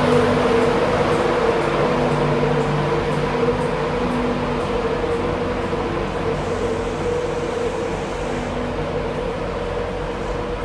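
Class 91 electric locomotive moving away under the overhead wires: a steady electric hum with several held whining tones over running noise, slowly fading as it draws off.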